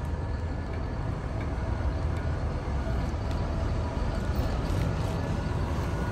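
Steady low engine rumble from a large forklift working alongside a loaded flatbed trailer. It grows a little louder about two seconds in.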